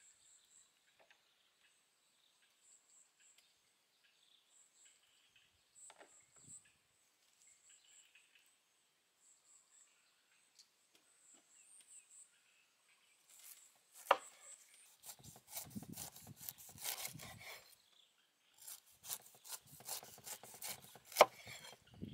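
A large kitchen knife cutting the rind off a whole pineapple on a wooden chopping board, starting about halfway in: a run of rasping strokes through the tough skin, with two sharp knocks of the blade on the board. Before that, only faint high insect chirping.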